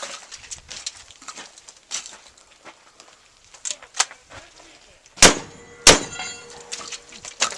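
Two shotgun shots in quick succession, about two-thirds of a second apart, followed by a ringing tone that dies away over about a second and a half.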